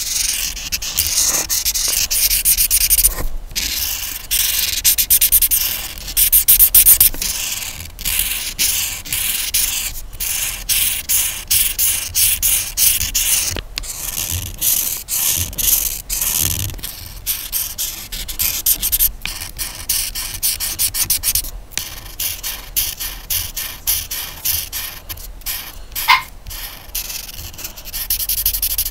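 Colouring strokes on paper: a colouring tool rubbed quickly back and forth across a page in short scratchy strokes, with a few brief pauses.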